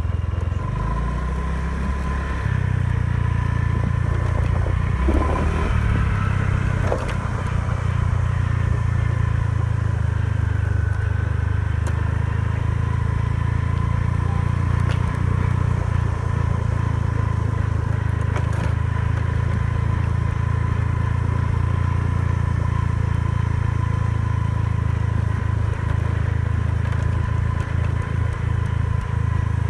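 Scooter riding along with its engine running steadily, a steady whine over a heavy low rumble of wind on the microphone.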